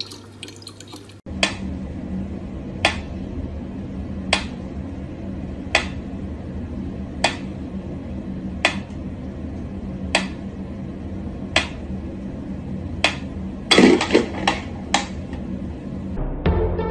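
Mechanical pendulum metronome ticking slowly, one sharp click about every second and a half. Near the end a few louder clicks and a knock come close together and out of step.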